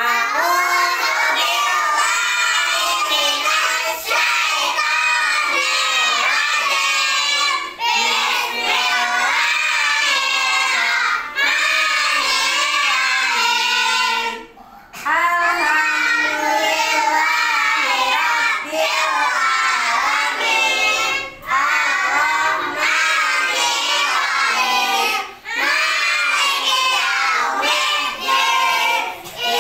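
A class of young children chanting the prayer before study together in a sing-song unison, in phrases broken by short breaks, the longest about halfway through.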